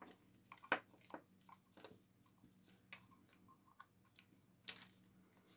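Faint, scattered small clicks and taps of fingers and nails handling a hard, cured clear-resin casting. The sharpest click comes about three-quarters of a second in, and another near the end.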